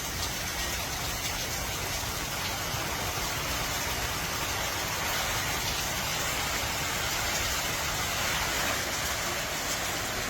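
Heavy, wind-driven rain pouring steadily from a hurricane's outer rain band, with a low rumble of wind underneath; it swells slightly near the end.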